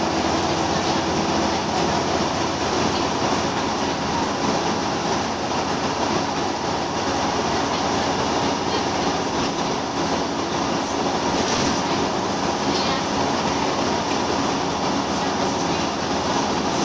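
Scania L94UB Wright Solar single-deck bus under way, heard from inside the passenger saloon: a steady, loud mix of its rear-mounted nine-litre five-cylinder diesel, road noise and body rattle.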